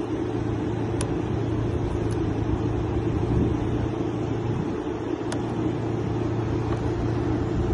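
A vehicle engine idling: a steady low hum, with a few faint clicks about one, two and five seconds in.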